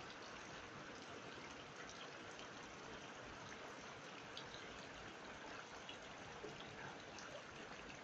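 Steady rain falling into puddles and standing water: an even hiss with scattered small ticks of individual drops.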